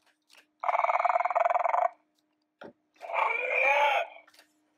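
Two growling dinosaur screeches for a velociraptor, each about a second long, the first harsh and rattling, the second bending up and down in pitch.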